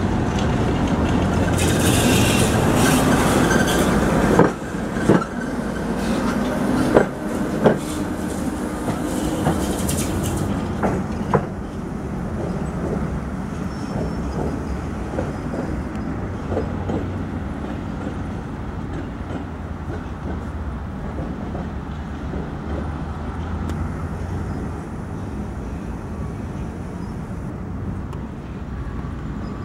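Tatra T6A5 tram running along the track, its wheels knocking sharply over rail joints five or six times in the first eleven seconds. After that it settles into a quieter, steady rumble.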